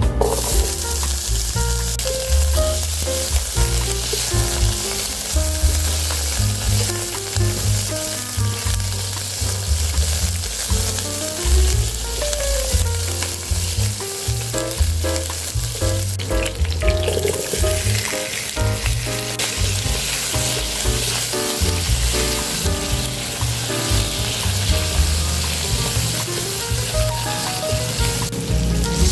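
Food sizzling and frying in hot oil in a pan, a steady hiss throughout, with background music playing underneath.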